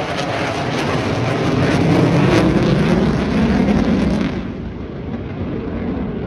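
Two fighter jets passing low overhead: a loud crackling jet roar whose pitch drops as they go by, then dulls and fades about four seconds in.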